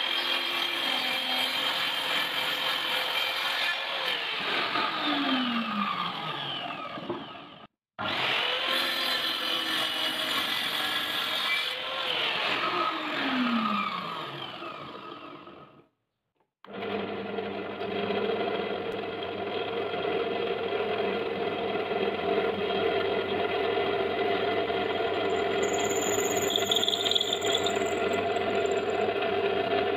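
Electric power tool motor running, then spinning down with falling pitch after switch-off, twice over. From about 17 seconds in, a motor runs steadily at constant speed.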